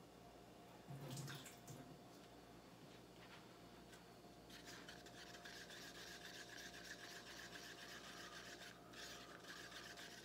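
Stick stirring thick black acrylic pouring paint in a plastic cup, a faint steady scraping and rubbing against the cup wall that starts about four seconds in and pauses briefly near the end, after a soft knock about a second in.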